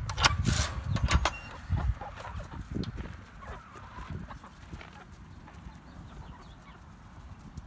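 A flock of backyard hens clucking as they crowd out of their coop, with a few loud knocks and rattles in the first second or so as the wire-mesh coop door is opened. The clucking thins out and grows quieter as the hens spread out into the yard.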